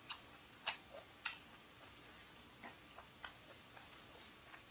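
A few faint, light clicks and taps at uneven intervals: small handling noises of chopsticks and tableware while a lettuce-and-perilla-leaf wrap is put together at the table.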